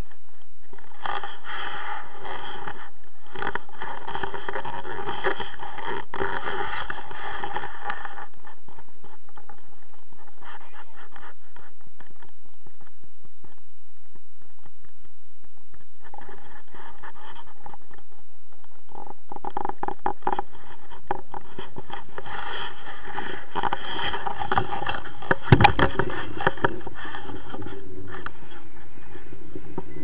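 Wind buffeting an action camera's microphone, with rustling and scraping of clothing and harness, in two long noisy spells. A few sharp knocks come near the end.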